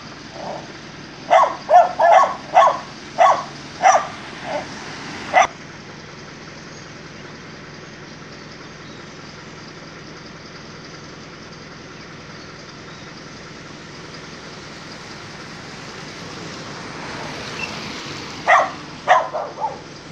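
Dogs barking: a quick run of about eight sharp barks in the first five seconds, then three or four more barks near the end, over a steady background hum.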